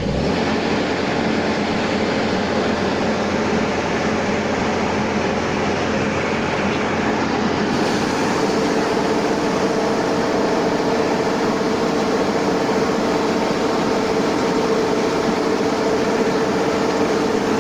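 Rice combine harvester running steadily under load, a continuous mechanical drone with a steady hum in it.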